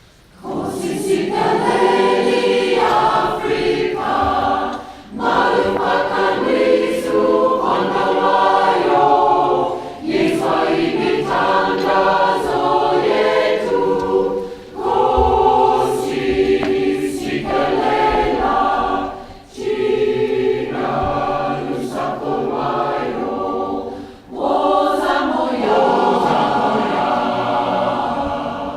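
Community choir singing in concert, in phrases of a few seconds with brief pauses between them.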